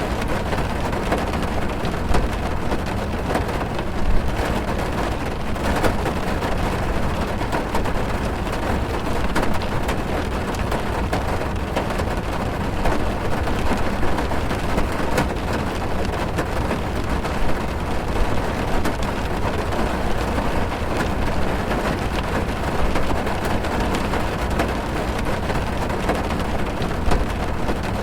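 Rain falling on a car's roof and windows, heard from inside the car: a steady dense patter of drops over a deep low rumble.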